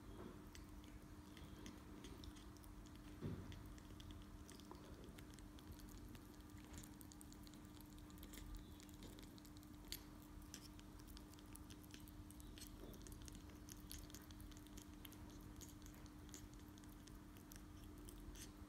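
Faint sounds of a squirrel monkey chewing and nibbling a date: small scattered clicks and smacks, with one soft knock about three seconds in, over a faint steady hum.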